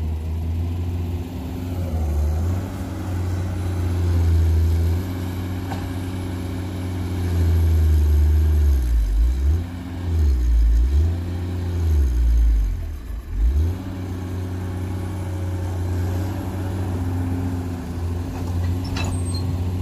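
Komatsu PC210-8 excavator's diesel engine working under hydraulic load while digging and swinging. Its speed dips and recovers several times in the middle, where it is loudest. This labouring under load is what the owner takes for an engine overload problem.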